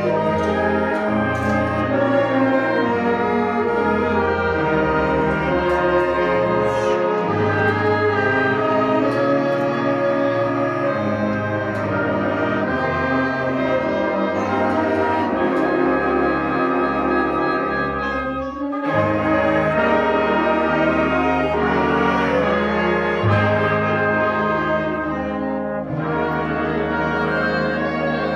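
High school concert band playing, saxophones, flutes, brass and electric bass in held chords that shift from one to the next. About two-thirds of the way through the band breaks off for an instant and comes back in.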